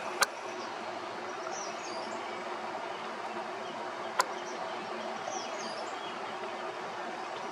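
Outdoor night ambience: a steady chorus of insects, with a bird's short high call repeating every few seconds. Two sharp clicks stand out, one just after the start and one about four seconds in.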